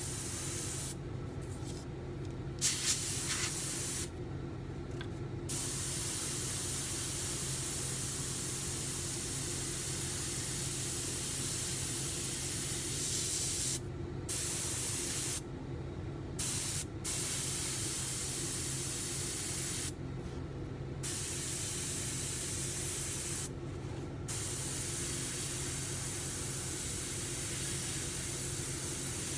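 Gravity-feed airbrush spraying paint: a steady high hiss that stops and starts again half a dozen times, over a low steady hum.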